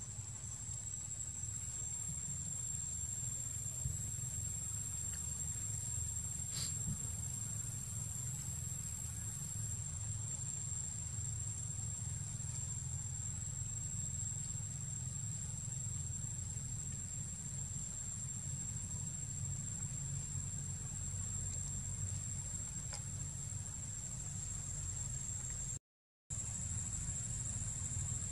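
Steady, high-pitched drone of insects in the forest, over a low steady rumble; the sound cuts out for a moment near the end.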